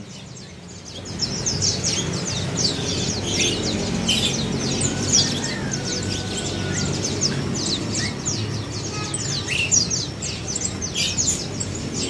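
Caged white-eyes (pleci), many birds together, chirping in quick, overlapping short high calls that pick up about a second in.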